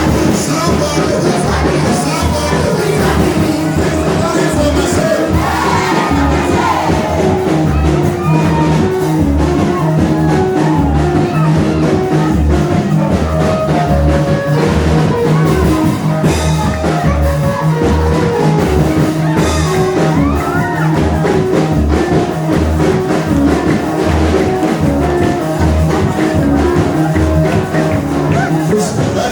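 Loud live gospel music with a steady bass beat and singing, with some shouting from the crowd.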